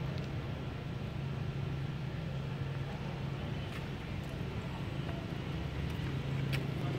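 A steady low engine hum, with a few faint clicks over it.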